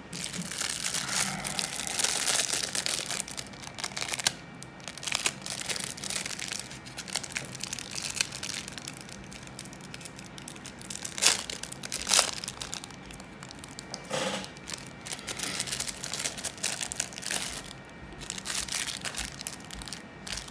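Crinkling and tearing of adhesive tape and film being peeled and handled by hand, with scattered sharp ticks and a few louder clicks around the middle.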